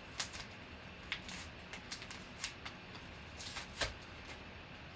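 Football trading cards being handled and flipped through: a string of short card swishes and clicks, with a louder snap and soft thump just before the end.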